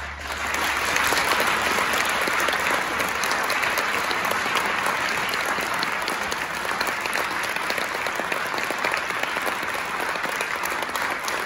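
Audience applauding: a dense clapping that breaks out right as the orchestra's music ends and goes on steadily.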